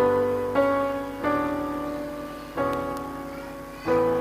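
Background keyboard music: soft sustained chords, five of them struck in turn, each fading before the next.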